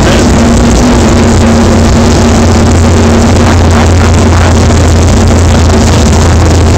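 A 1968 Camaro SS drag car's V8 running at a steady speed on a chassis dynamometer, very loud.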